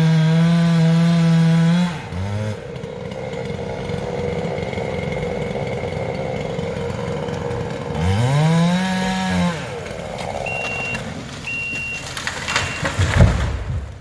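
Chainsaw running at full throttle, then let off to idle about two seconds in and revved up and back down once more around eight seconds in, over the steady drone of another engine. Near the end a reversing alarm beeps repeatedly and there is a heavy thump.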